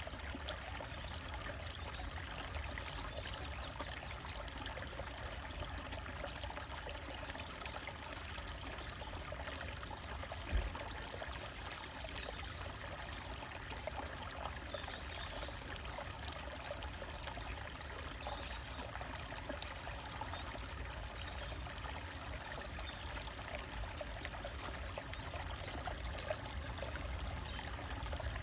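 A small stream trickling and splashing steadily over rocks, with occasional high bird chirps and one brief low thump about ten seconds in.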